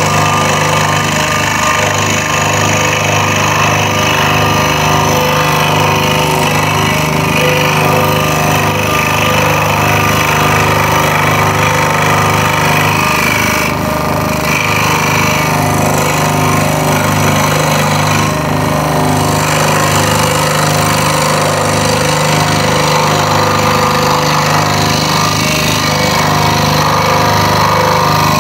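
Scroll saw running, its fine blade reciprocating rapidly and cutting through a thin wooden board, a steady fast buzz as the workpiece is fed and turned around tight curves. The cutting hiss eases briefly twice, about halfway and two-thirds of the way through.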